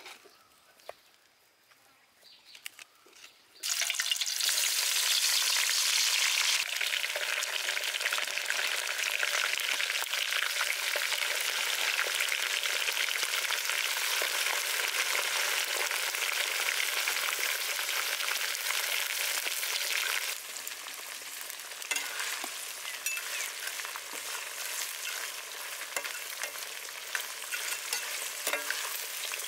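Near silence, then about four seconds in food goes into hot oil and starts sizzling loudly: deep-frying. The sizzle eases to a lower, crackling level about twenty seconds in.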